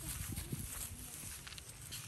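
A calf grazing on dry straw and stubble: a few short crackling rips as it tears the dry grass, clearest about one and a half seconds in.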